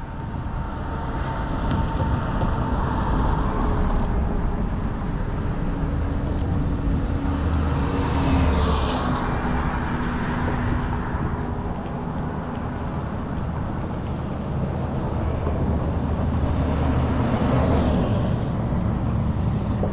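Road traffic passing on a highway bridge: a steady rumble of tyres and engines that swells as vehicles go by about eight seconds in and again near the end.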